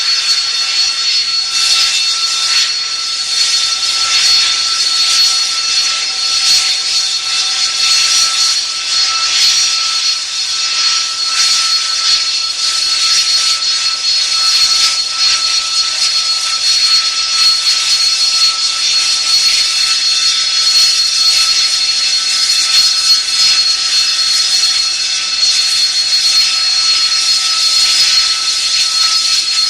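Jet engine idling: a steady whine made of several held tones over a loud, even hiss, with no change in pitch or level.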